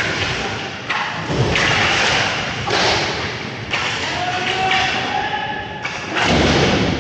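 Repeated heavy thuds and knocks of inline roller hockey play, echoing in the arena, with the loudest hit about six seconds in.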